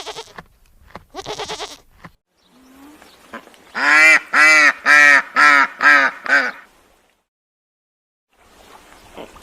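A duck quacking six times in a quick, even series.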